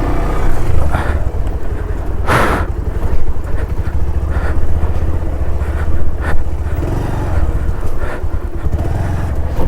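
Bajaj Pulsar 150 motorcycle engine running steadily with a low rumble as the bike rides a rough track. A short loud rush of noise comes about two and a half seconds in.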